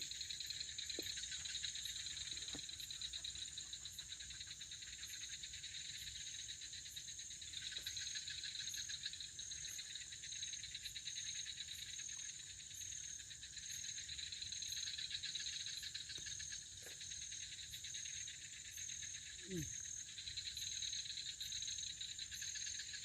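Steady, shrill chorus of crickets and other insects, with a faint high tick repeating about once a second. A short low call is heard near the end.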